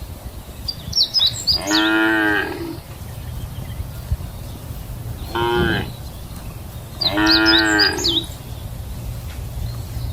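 Cattle mooing: three moos, the first and last about a second long, a shorter one in between.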